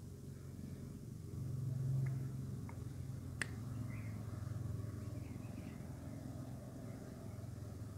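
Cat purring close to the microphone, a steady low rumble that swells about a second and a half in. A single sharp click comes about halfway through.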